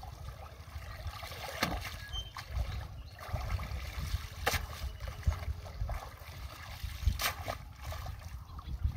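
Water splashing and dripping as a cast net is hauled up out of a shallow pond, with three sharper splashes about a second and a half in, halfway through and near the end, over a low rumble.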